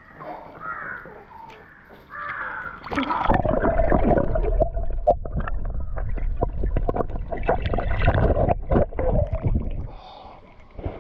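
Pool water in an inflatable swimming pool, heard from a microphone held under the surface: from about three seconds in, a loud, muffled underwater rumble with bubbling and clicks that lasts about seven seconds and drops away as it surfaces near the end.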